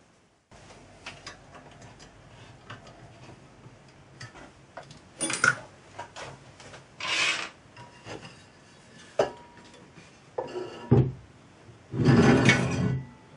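Aluminium frame parts being handled on a wooden workbench: light knocks and clicks, with a few short scraping slides of metal on wood, the longest about a second near the end.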